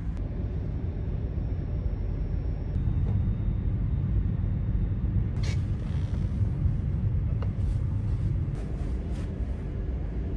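Steady low rumble of a passenger ship under way, heard inside its cabin. A few sharp clicks and knocks come about halfway through and again near the end as a reclining seat is handled.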